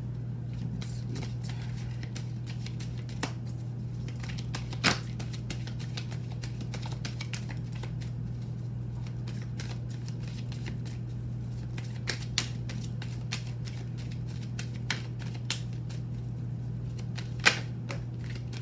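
A deck of oracle cards being shuffled by hand: a run of light card clicks and riffling, with a few sharper snaps, one about five seconds in, two around twelve seconds and one near the end as a card is laid on the table. A steady low hum sits underneath.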